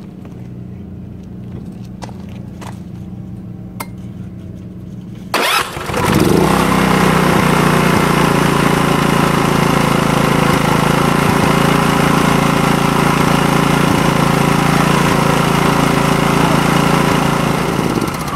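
Arksen 3600 inverter generator, side covers off, starting up about five seconds in and then running steadily, warming its freshly topped-up oil.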